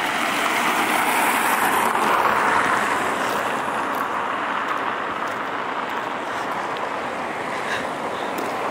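Road traffic: the tyre noise of passing cars on the road alongside, swelling about two seconds in and easing off slowly.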